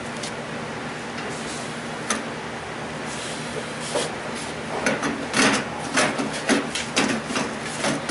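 Handling and working noises from tools and parts: irregular scraping and clicking that starts about halfway through, several a second, over a steady background hum.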